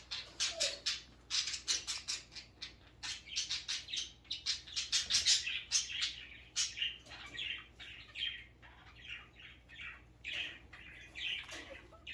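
Pet parrot chirping in quick runs of short, high calls, dense at first and more spaced out later: a happy, excited parrot.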